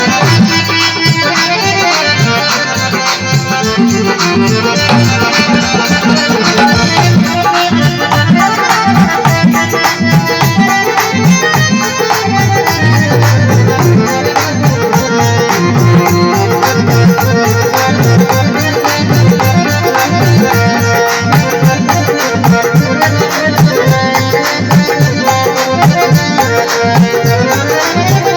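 Instrumental interlude of Rajasthani folk devotional music: a reed keyboard instrument plays the melody over a steady hand-drum beat.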